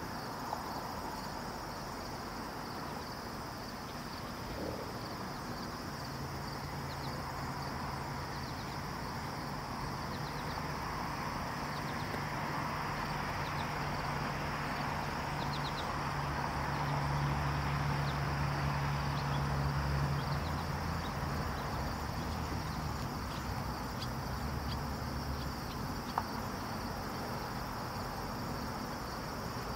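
Steady insect chirring, with a low hum that builds up through the middle and fades away again.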